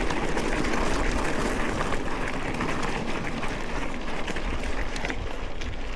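Mountain bike riding over a dirt trail: steady tyre and wind noise with many small clicks and rattles from the bike over rough ground.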